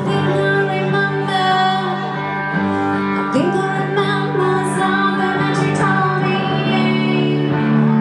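Live band music: a woman singing lead over acoustic and electric guitars, bass guitar and drums.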